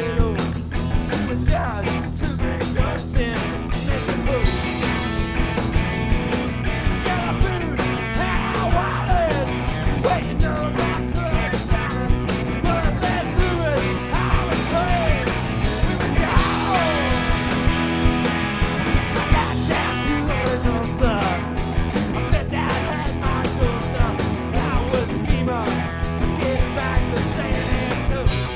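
Live cowpunk rock band playing an instrumental break without vocals: an electric guitar lead with bent, gliding notes over steady drums and bass.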